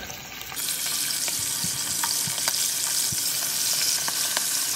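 Chicken thighs frying skin side down in hot oil in a large pot: a steady sizzle with scattered pops and crackles, which grows louder about half a second in.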